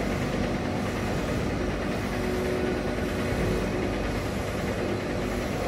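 WeenTek WK-702 DTF printer running, its twin-head print carriage shuttling back and forth across PET film with steady mechanical noise.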